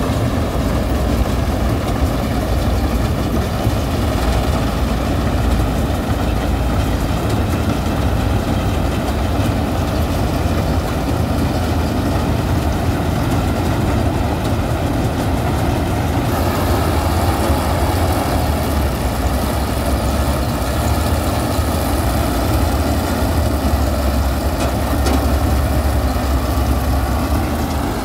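Standard TSC-513 combine harvester cutting paddy, its engine and threshing machinery running steadily at working load. The sound turns brighter and hissier about halfway through.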